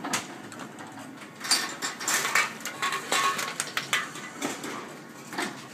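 Empty plastic deposit bottles handled from a wire shopping cart and fed into a reverse vending machine, clattering with irregular knocks and clicks.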